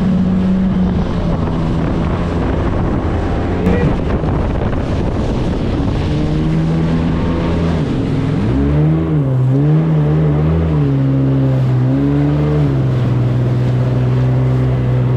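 Jet ski engine running steadily, with the pitch dipping and rising several times about halfway through as the throttle is eased and opened. Wind rushes over the microphone throughout.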